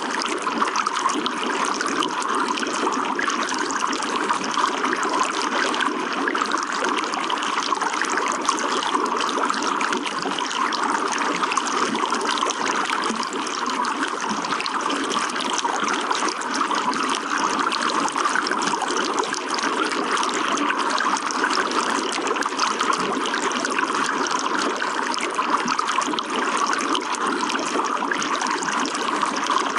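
Running water trickling and splashing steadily, without pause or change.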